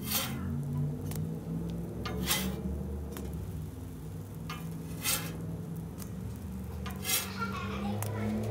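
A metal spatula scrapes across a Blackstone flat-top griddle as it slides under pancakes to flip them. There are four short scrapes about two seconds apart, over a low steady hum.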